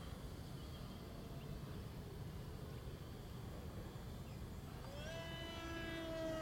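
HobbyKing Skipper RC plane's electric motor and propeller whining overhead: about five seconds in, the whine rises sharply in pitch and grows louder, then slowly sinks in pitch.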